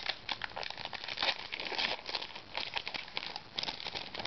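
Trading card pack wrapper crinkling as it is handled and torn open, a busy irregular crackle.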